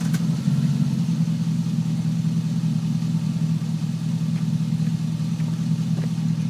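2005 Chevy Avalanche V8 running through a loud, dumped aftermarket exhaust with Cherry Bomb mufflers: a steady, deep, even rumble with no revving.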